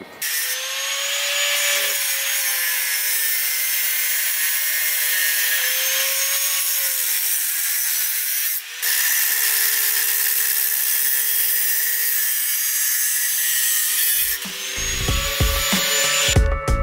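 Angle grinder cutting metal: a steady, slightly wavering motor whine over harsh grinding noise, with a short break about halfway through. Near the end the grinding stops and music with a strong beat comes in.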